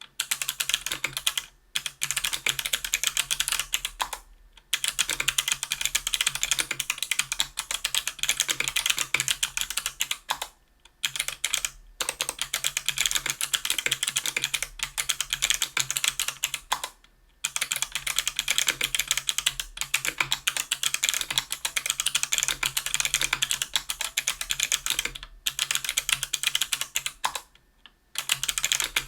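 Steady fast typing on a KBDfans Tofu 60% aluminium keyboard with stock, unlubed Kailh BOX Crystal Jade clicky switches (75 g), an aluminium plate and GMK keycaps. The keystrokes come in long continuous runs, broken by short pauses a handful of times.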